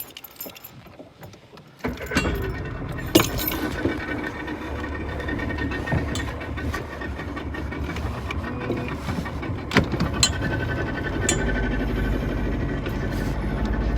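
Boat outboard motor starting about two seconds in, just after its fuel primer bulb was pumped, then running steadily with a few sharp knocks and rattles; it gets louder near the end.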